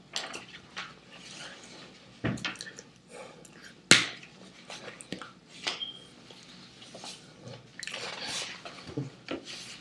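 Hands slapping and clapping against each other and the body during fast sign language, a string of sharp irregular smacks with the loudest about four seconds in, mixed with softer rustles and mouth noises.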